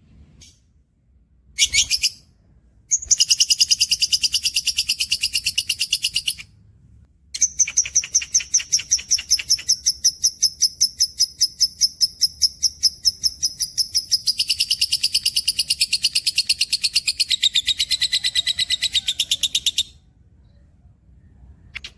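Caged songbird singing long, fast trills of rapidly repeated high notes. A short burst comes about two seconds in, then a trill of about three seconds, then one unbroken trill of some twelve seconds that drops in pitch partway through.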